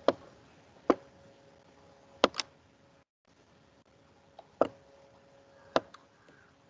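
About seven sharp computer mouse clicks at irregular intervals, over a faint steady hum.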